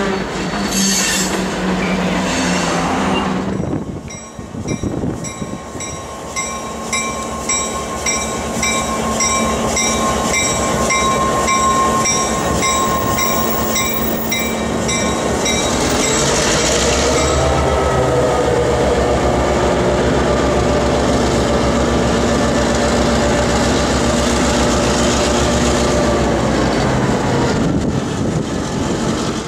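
A freight train of an EMD GP9 diesel locomotive and empty tank cars rolling past, with the rumble of wheels on rail. A bell rings steadily at about two strokes a second through the middle of the passage. Near the end the locomotive's diesel engine is heard running under load.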